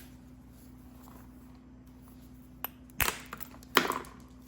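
Pieces of chert knocking and clinking against each other as they are handled: a small click, then two sharper knocks less than a second apart.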